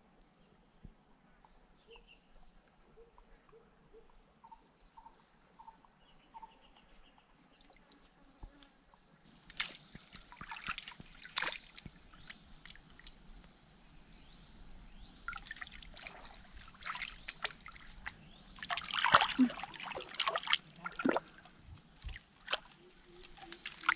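Shallow stream water splashing and sloshing in irregular bursts as a person wades and gropes in it. The first several seconds are nearly quiet with a few faint chirps, and the splashing is loudest a little past the middle.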